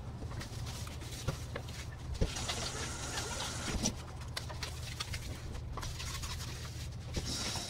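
A cloth rubbing over glazed kitchen wall tiles, with soft scratchy wiping noise and scattered small knocks over a steady low hum.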